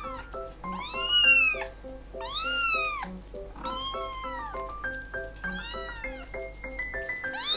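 A three-week-old orange tabby kitten crying loudly over and over, about five long meows that rise and fall in pitch: distress cries at having its claws clipped. Light background music plays underneath.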